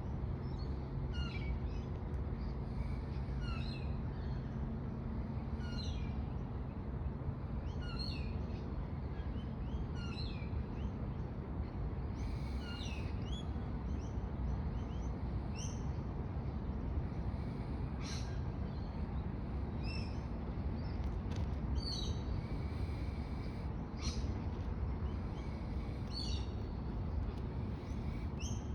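Wild birds calling outdoors: one repeats a short chirp about every two seconds, joined by more varied chirps in the second half, over a steady low rumble.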